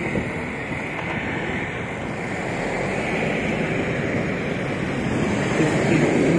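Steady rushing noise of wind on the microphone, growing a little louder toward the end.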